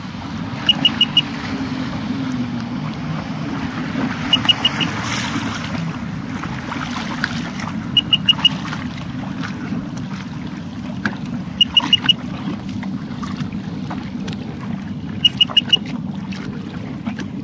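A boat's engine running steadily with water and wind noise. A set of four quick high beeps repeats about every three and a half seconds.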